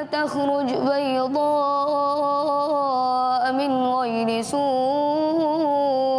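A boy's voice reciting the Qur'an in a melodic chant (tarannum), drawing out one long phrase with small ornamental wavers in pitch and a slight drop about four and a half seconds in.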